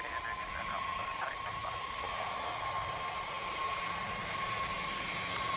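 Jet engines of a large Boeing 747-type aircraft rolling slowly on the runway: a steady, even whine, with constant tones high and mid, over a low rumble.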